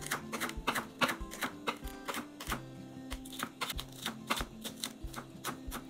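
Kitchen knife chopping spring onion on a wooden cutting board: a steady run of short, sharp taps, a few each second, over background music.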